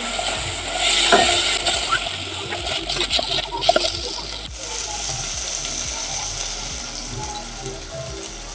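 Steady sizzling hiss of food frying in a pan, louder in the first few seconds and then easing, with a few light clicks of a utensil.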